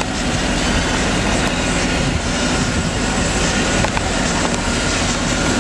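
Steady vehicle-like rumble and hiss with a faint steady hum through it, not changing in level, and a faint click or two.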